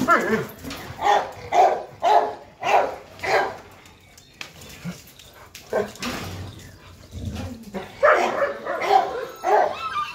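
A dog barking in a rapid series of short barks, about two a second, for the first few seconds; it pauses, then barks again several times near the end.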